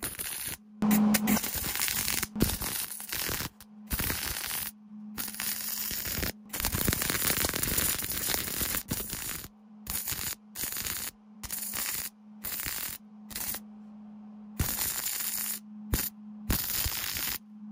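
Wire-feed (MIG) welder arc crackling and sizzling as it lays weld on a steel hatchet head, in many short bursts that each cut off abruptly, with a faint steady hum underneath.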